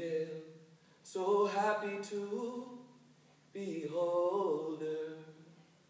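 A man singing unaccompanied in sean-nós style: two long phrases of held notes with ornamented bends in pitch, the second starting about three and a half seconds in.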